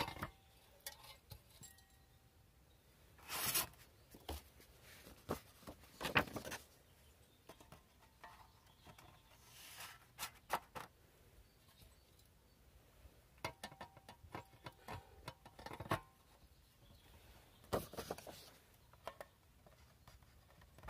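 Faint scattered clicks, taps and short rustles of paper target cards being handled and swapped in a plastic pellet-trap target holder, with a quick run of clicks about two-thirds of the way through.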